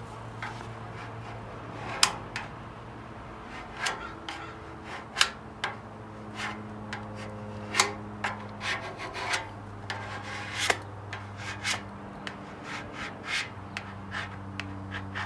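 Squeegee rubbing over a wet vinyl decal on a motorcycle fuel tank in short, irregular strokes, pressing the water out from under the decal so it will stick.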